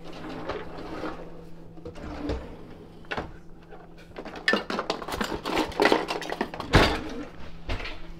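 Kitchen utensils clattering and knocking, busiest in the second half, over a steady low hum.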